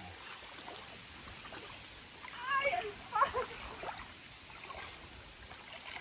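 Legs wading through shallow river water with a light splashing. About two and a half seconds in, a high-pitched voice calls out twice in quick succession.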